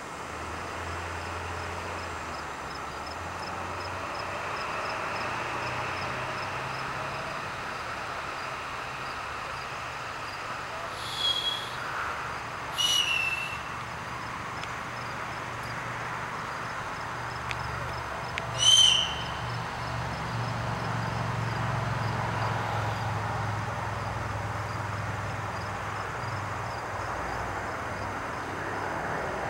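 A steady low drone of distant engine noise, swelling a little in the second half. Three short high chirps cut through it, about eleven, thirteen and nineteen seconds in.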